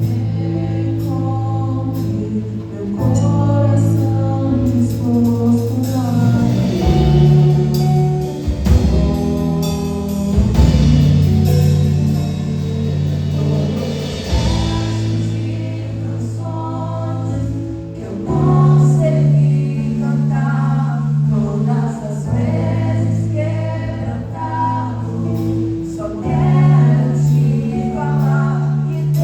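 A church worship group singing a Portuguese gospel worship song, several voices together over instrumental accompaniment, with sustained low bass notes that change every few seconds.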